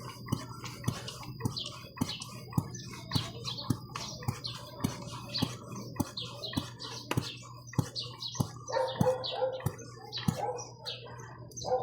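Hand air pump inflating a bicycle tyre, with a sharp click about twice a second as it is worked, and birds chirping in the background.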